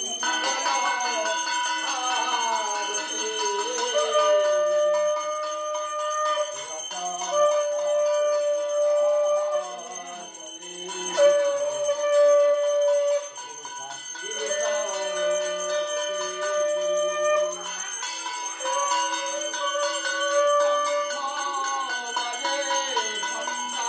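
Puja hand bell ringing continuously during aarti, with a melody of long held notes that bend in pitch running alongside it.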